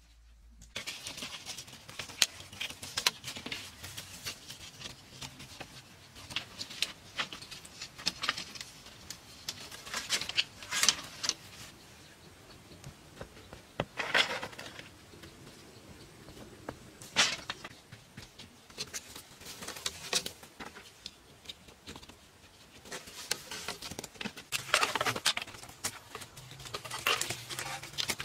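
Split bamboo slats clattering and knocking together as they are handled and gathered from a pile, in irregular clicks with a few longer scraping rustles as slats slide against each other.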